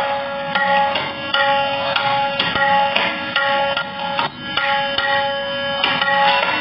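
Tabla solo: the dayan and bayan struck in a fast, dense run of strokes, with a steady held tone underneath, briefly dropping away a little after four seconds in.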